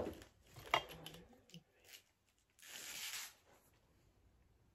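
Handling noises from packaging: a few sharp clicks and knocks, then a short rustle of plastic about three seconds in.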